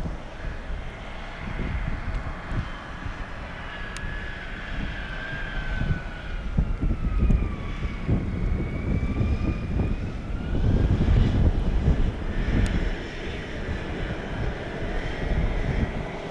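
Boeing 727-223's three Pratt & Whitney JT8D-17 jet engines, heard from the ground as the freighter comes in to land. A steady low rumble swells and eases, and an engine whine glides down in pitch until about halfway through, then rises again.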